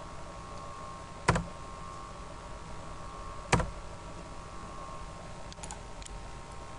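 Computer mouse clicks: two sharp clicks a little over two seconds apart, then a few fainter ticks near the end, over a steady background hum.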